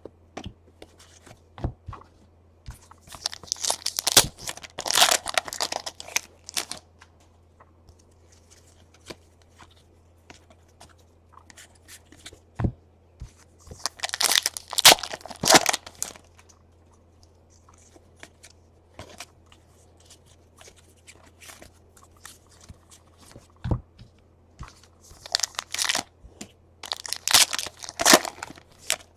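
Trading-card pack wrappers being torn open and crinkled, in three bursts about ten seconds apart, with light clicks and taps between them.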